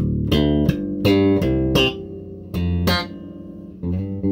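TUNE SWV-6 six-string, 33-inch-scale electric bass with a monkey pod top, played fingerstyle: a run of bright plucked notes, then a chord left ringing near the end.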